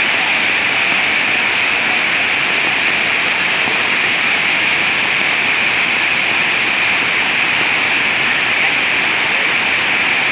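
Waterfall: a steady, even rush of falling water that stays unchanged throughout.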